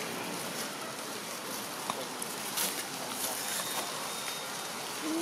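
Steady outdoor background hiss, with a faint high chirp and a few soft clicks.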